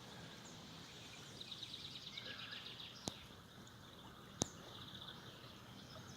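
Faint outdoor ambience with high chirping trills, and two sharp clicks, about three seconds in and again a second and a half later.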